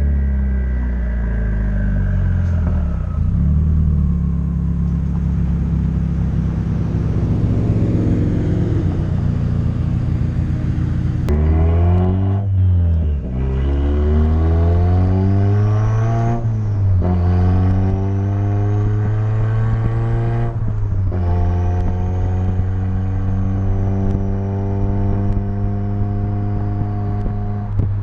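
Mazdaspeed3's turbocharged 2.3-litre four-cylinder, fitted with a big BNR S4 turbo, an equal-length tubular manifold, an external wastegate and a straight-piped exhaust, pulling through the gears. The engine note climbs three times, with a brief break at each shift and a faint high whistle rising alongside. After that it holds a steady note.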